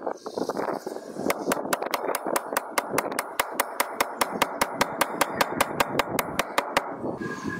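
A small machine running with a steady rough noise and an even, sharp clicking of about four or five clicks a second, which starts about a second in and stops just before the end.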